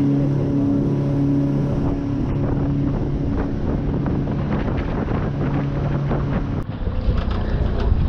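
Motorboat engine running steadily while underway, a low two-note hum over rushing water and wind on the microphone. Near the end the engine hum drops out and heavier wind rumble with small water slaps takes over.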